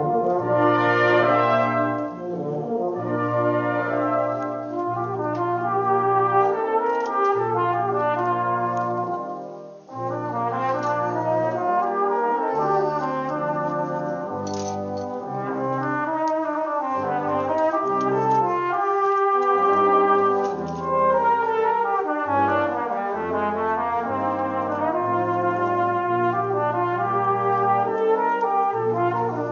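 Brass band playing live: sustained chords over a low bass line that moves every second or two, with a brief break in the sound about ten seconds in.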